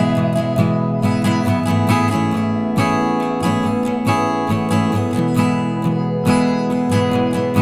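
Background music: acoustic guitar strumming chords at a steady rhythm.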